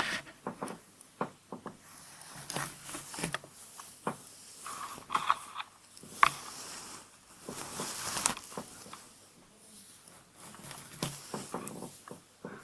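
Close-miked hair being handled: irregular soft swishes, crackles and light taps, with a couple of longer hissy rustles.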